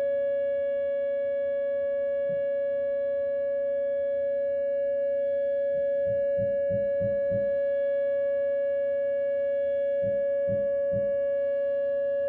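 Whelen WPS 2909 electronic outdoor warning siren sounding a steady alert tone, held at one unwavering pitch during its monthly test. Underneath it come two short runs of low thumps, about five blows and then four, from hammering in the house.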